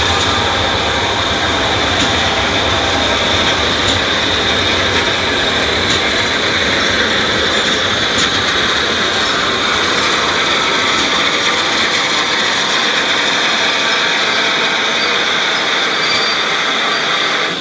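GWR Castle-class steam locomotive 7029 Clun Castle and its coaches rolling slowly into a station platform, with a steady high-pitched squeal of brakes on the wheels. A low rumble of wheels on rail dies away in the second half as the train draws to a stop.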